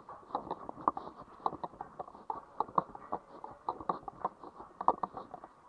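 Footsteps walking, a run of short sharp steps about two to three a second.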